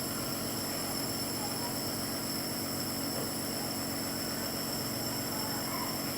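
Nebulizer compressor running with a steady, even hum.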